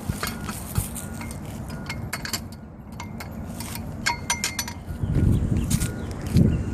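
Small metal pieces clinking and jingling in scattered light taps, some with a brief ring. About five seconds in, a louder low rumbling noise comes in.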